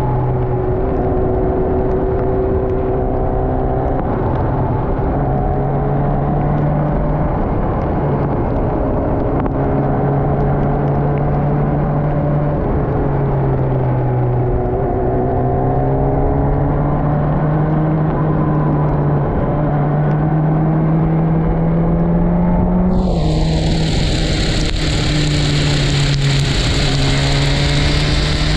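Sport motorcycle's engine running under way, its note rising and falling through the bends and breaking off briefly several times, over wind rush. About 23 seconds in, a steady high hiss joins in.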